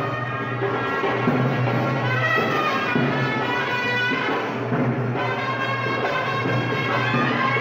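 Background instrumental music.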